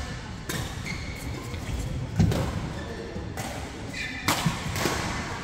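Badminton play in a large hall: sharp racket hits on the shuttlecock and footfalls on the court, with the loudest thud about two seconds in.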